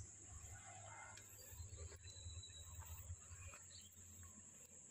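Near silence: a faint, steady high-pitched insect drone, with a low rumble underneath.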